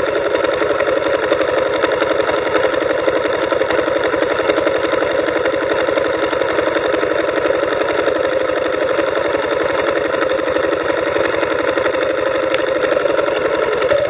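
Motorcycle engine idling steadily with a fast, even beat while the bike stands still.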